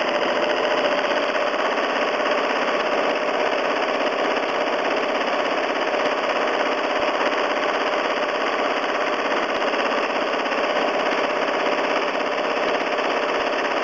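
Home sewing machine running fast and steadily, straight-stitching through a quilt with its needle going at a rapid, even pace. It cuts off at the very end.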